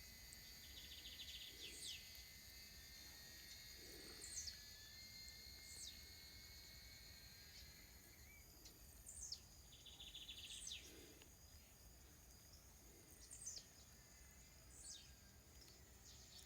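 Night chorus of insects such as crickets: several steady high buzzing tones, with short falling chirps repeating every second or two and a brief rapid trill three times.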